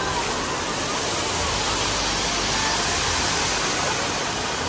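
Dancing-fountain water jets spraying and splashing down into the pool, a steady rush of water.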